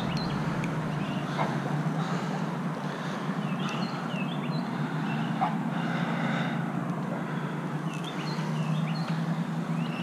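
Chainsaw engine idling steadily after a cut, while a bird chirps in short curved phrases that recur every few seconds.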